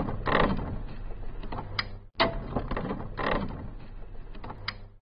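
Mechanical intro sound effect of turning machinery: metallic clanks and creaks over a low steady hum. The same clip plays twice, restarting about two seconds in, and stops abruptly near the end.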